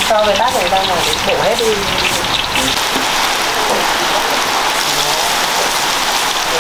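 Hot oil sizzling steadily in a pan as peeled boiled quail eggs fry.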